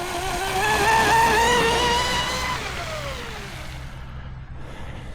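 Pro Boat Blackjack 24 RC catamaran's electric motor whining at full throttle, its pitch climbing for the first couple of seconds, then gliding down and fading out about four seconds in.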